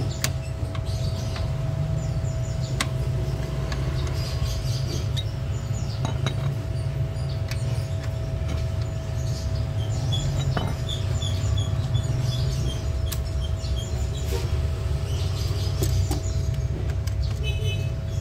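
A steady low hum with a constant tone above it runs throughout, under scattered sharp metallic clinks of a wrench on the bolts of a Vespa's clutch cover. A bird chirps in a quick run of about ten short notes midway through.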